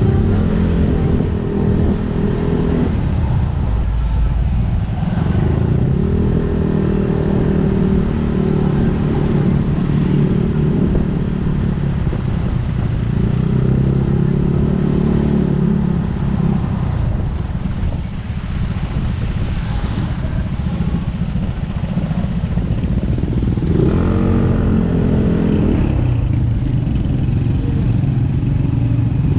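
Vehicle engine running under load, its engine note swelling in stretches of a few seconds and dropping back between them, over a steady low rumble and rushing noise.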